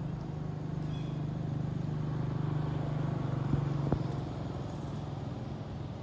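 A motor engine running steadily in the background, a low even drone that grows a little louder toward the middle. Two sharp clicks sound close together a little past halfway.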